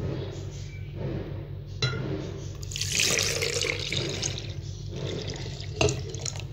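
Milk poured from a jug into a glass blender jar, splashing and gurgling as the jar fills, loudest from about three seconds in. A short knock about two seconds in.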